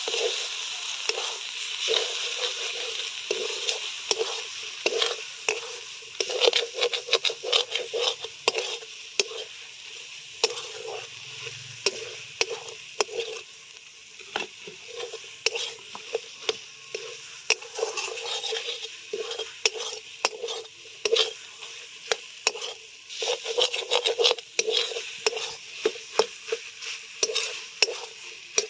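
Metal spatula stirring and scraping egg, potato and tomato around a metal kadai, giving many quick, irregular scrapes and clicks over a steady sizzle of frying. The eggs are being scrambled into the fry.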